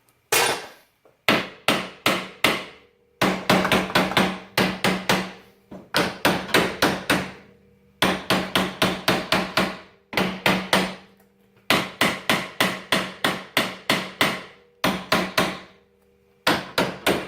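A hammer striking metal in runs of quick blows, about three to four a second with short pauses between runs, with the struck part ringing. The blows are tapping to drive out a stuck part of the four-wheeler's axle assembly, which does not come free.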